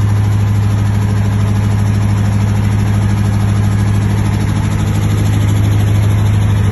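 30 kVA diesel generator set in a soundproof acoustic enclosure running steadily at constant speed, a loud, even, deep hum.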